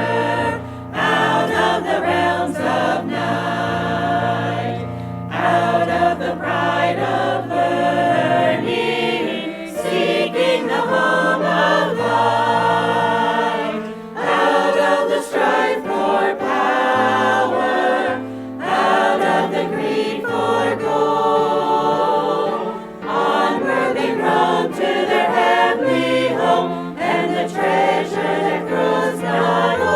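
Choir singing a hymn-like song in phrases, over steady low held notes.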